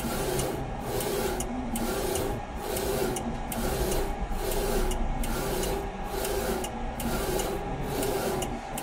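NC-UV0406 flatbed UV printer's print-head carriage running back and forth over a phone case in even passes, changing direction a little more than once a second, while laying down a gloss varnish layer.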